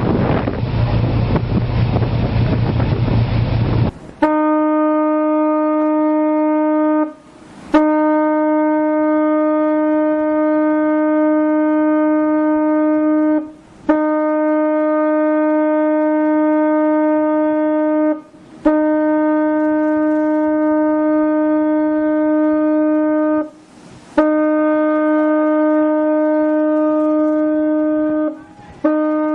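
Wind and sea noise on the microphone, then about four seconds in a ship's horn starts sounding a string of long steady blasts, each several seconds long, with brief breaks between them.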